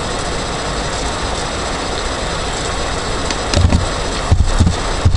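Steady background hiss with a low hum. In the last couple of seconds a few short knocks of keyboard keys are heard as code is typed.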